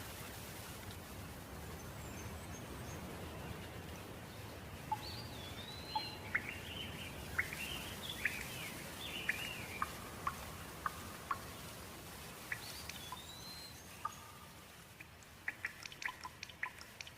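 Birds chirping with quick rising and falling calls over a steady hiss of light rain. Scattered sharp water drips begin near the end.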